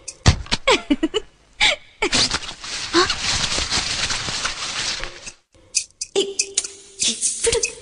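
Breathy vocal sounds and gasps with short gliding vocal cries and sharp clicks, in a break between the sung lines of a Malayalam film song. The sound drops out briefly about five and a half seconds in.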